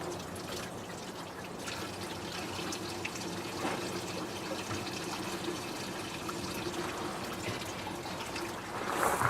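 Engine coolant draining steadily out of the truck's cooling system into a bucket, a continuous trickle and splash, with a brief louder noise near the end.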